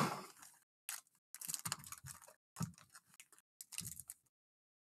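Foil trading-card packs being handled: a sudden rustle, then clusters of light clicks and crinkles as packs are shuffled and one is picked up and its wrapper seal pulled at.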